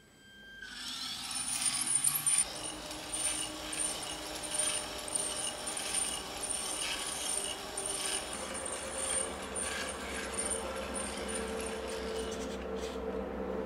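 Metal RC model car running: its small electric drive motor whirs and its metal gears and linkages clatter with a light metallic jingle as it drives. The sound starts under a second in, and a lower whine grows stronger about eight seconds in.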